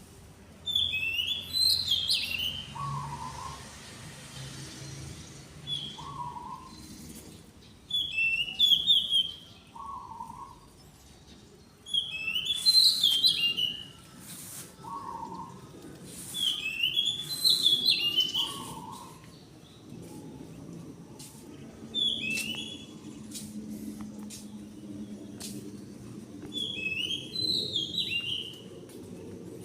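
A songbird singing the same short phrase over and over, every few seconds: a lower note followed by a quick run of high chirps. Faint clicks are scattered between the phrases.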